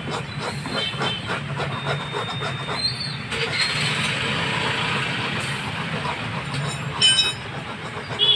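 Abrasive pad rubbed by hand back and forth over a car tyre's rubber sidewall where a puncture has just been sealed. The first few seconds carry rasping strokes, about three a second, and then a steadier hiss. Two short, sharp high sounds come near the end.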